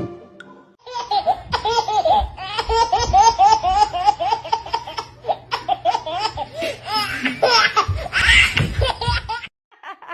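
A person laughing hard in rapid, high-pitched, repeated bursts, several a second, starting about a second in and stopping shortly before the end.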